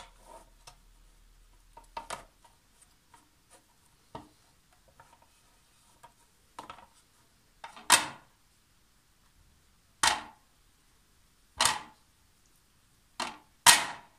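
Plastic serving tray being wiped with a paper towel on a stone countertop: faint rubbing and small clicks, then about five loud, sharp knocks in the second half.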